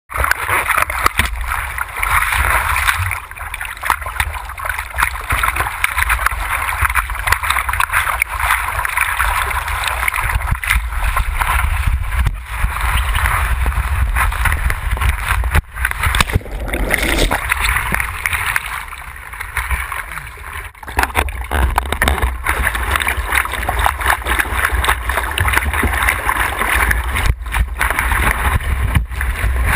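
Water rushing and splashing over a surfboard, picked up by a board-mounted action camera, with a heavy rumble of wind buffeting its microphone.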